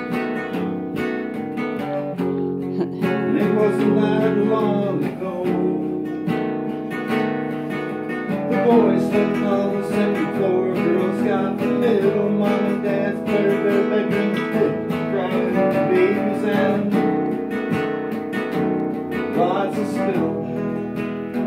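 Acoustic guitar strummed steadily, its chords changing every second or two, in an instrumental break of a song.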